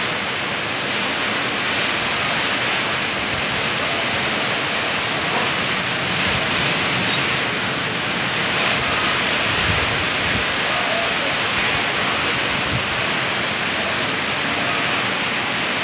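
Typhoon wind and heavy rain: a steady, dense rushing hiss that holds level throughout.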